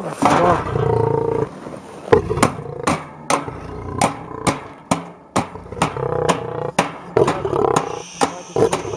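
Male lion growling in deep, rough rumbles close to the cage bars. From about two seconds in, a fast run of sharp knocks, about three a second, sounds over the growling.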